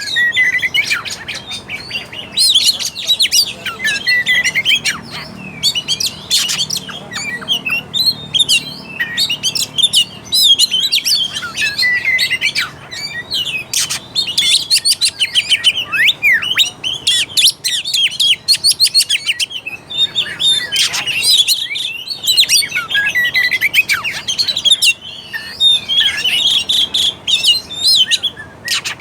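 Oriental magpie-robin (kacer) singing a fast, varied song of whistled notes mixed with harsh chattering, almost without a break.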